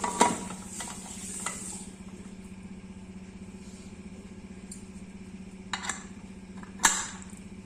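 Aluminium pressure cooker lid clunking as it is closed and locked, then two sharp metal clicks near the end as the whistle weight is set on the vent pipe, over a steady low hum.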